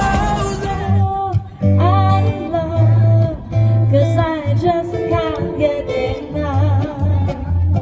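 Live band music: a held sung note fades about a second in, then bass and guitar play on with a melodic line over them.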